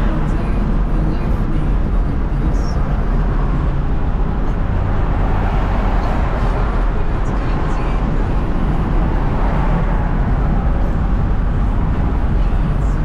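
Steady road and wind noise inside a moving car at highway speed: a low, even rumble from the tyres and engine mixed with the rush of air through an open window.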